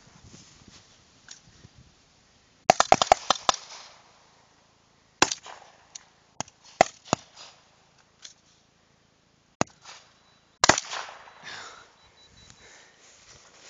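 AR-15 rifles firing blank rounds. There is a rapid string of about six shots about three seconds in, then scattered single shots a second or so apart, the last one near the end followed by a short smear of echo.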